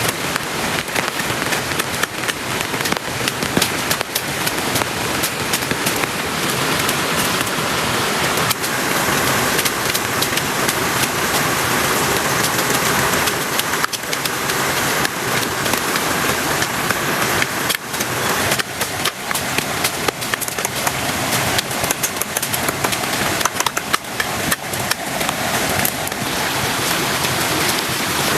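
Heavy rain falling steadily, a dense hiss full of sharp individual drop hits.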